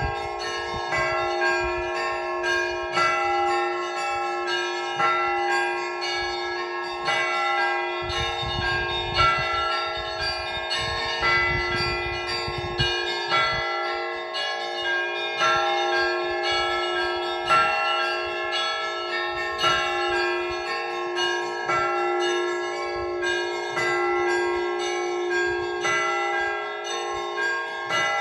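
Russian Orthodox church bells ringing in a continuous peal: frequent repeated strikes on several bells over their sustained, overlapping ringing tones. This is the evening ringing of a village church.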